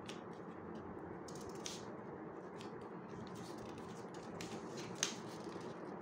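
Origami paper rustling and crinkling as it is folded and creased by hand: scattered short crackles, one sharper about five seconds in, over a steady low background hum.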